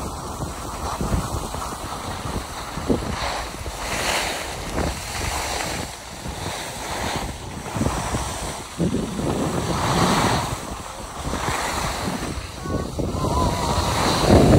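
Skis sliding and scraping over packed snow through a run of turns, the noise swelling and fading every second or two, with wind rumbling on the phone's microphone.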